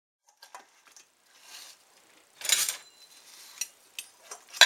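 Kitchen utensils clicking and clattering against a bowl while sauced chicken wings are made ready to toss, with a short louder rush of noise about two and a half seconds in and a sharp clink near the end.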